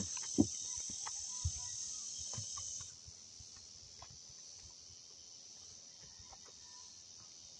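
Steady high-pitched chorus of insects, which drops quieter about three seconds in, with faint scattered clicks and rustles of a tarot deck being handled and shuffled.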